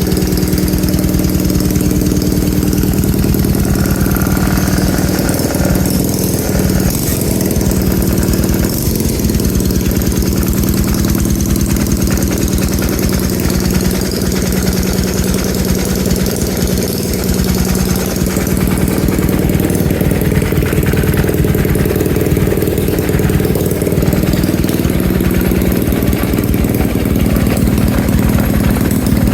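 Mini bike's small petrol engine running steadily at an even speed, without revving, sounding smooth and even after earlier rough running.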